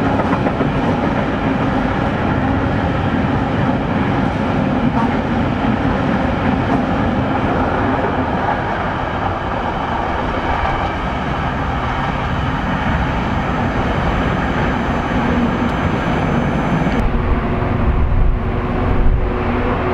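Freight train of empty open ballast wagons rolling past on the rails and drawing away, with a steady mass of wheel and wagon noise. Near the end the sound changes abruptly to a deeper rumble.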